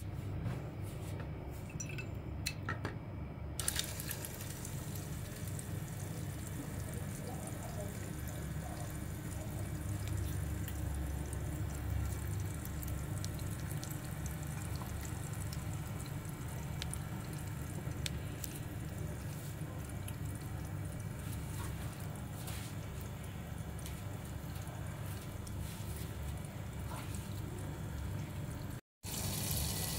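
Battery-powered turtle bath-fountain toy running in a basin of water: its small pump motor hums steadily while the jet it sprays up splashes and drips back into the water. The sound drops out for a moment near the end.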